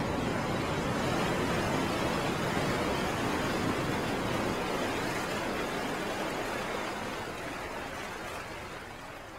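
Steady, even rushing noise that fades out over the last few seconds.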